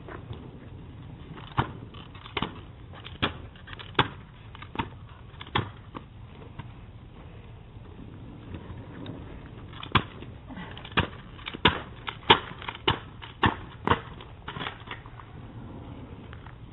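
A series of sharp knocks or clacks: about six, evenly spaced, in the first six seconds, then a quicker run of about eight between ten and fifteen seconds in, over a steady low hiss.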